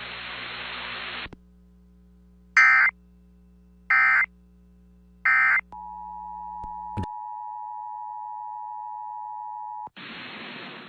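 Emergency Alert System audio on a weather-radio feed. Radio hiss gives way to three short bursts of digital SAME data tones about 1.3 s apart, typical of an end-of-message code. A steady two-pitch alert tone follows for about four seconds, then cuts off into hiss.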